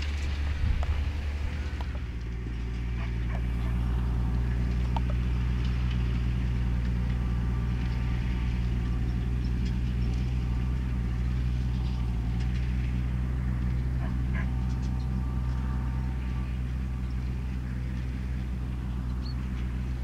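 New Holland tractor's diesel engine running steadily under load, pulling a reversible plough through the soil.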